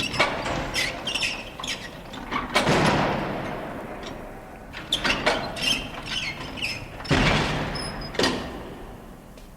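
Heavy metal door creaking and squeaking on its hinges, with clanks and two heavy booming impacts about two and a half and seven seconds in that ring on and fade slowly.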